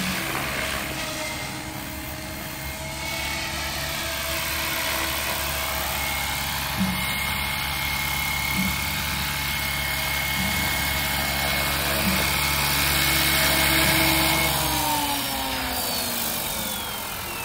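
An SAB Goblin 500 Sport electric RC helicopter's motor and main rotor run with a steady whine. About fifteen seconds in, the pitch starts falling as the rotor spools down after landing.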